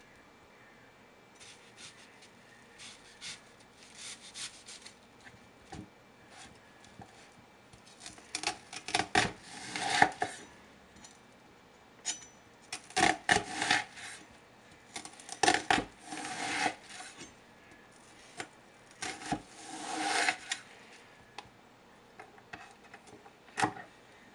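Chef's knife slicing through a red onion and tapping the wooden cutting board, in short runs of quick cuts with pauses between.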